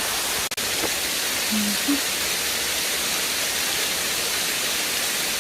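Waterfall pouring steadily, an even rushing hiss of falling water. The sound drops out briefly about half a second in.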